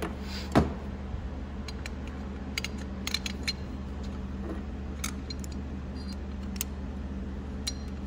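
Small clicks and clinks of a metal door-handle bracket and the plastic handle housing being handled and fitted together, with one louder knock about half a second in and a quick run of clicks near the middle.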